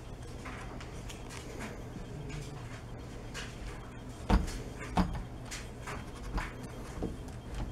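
Kittens pawing and jumping at a decoration hanging on a door: scattered light taps and knocks against the door, with two louder thumps about four and five seconds in.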